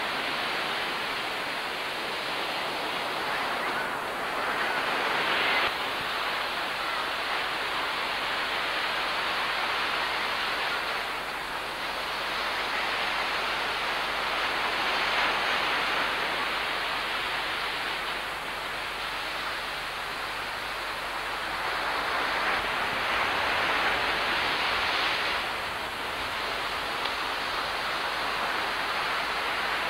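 Ocean surf breaking on a sandy beach: a steady rushing wash that swells every few seconds as waves break and run up.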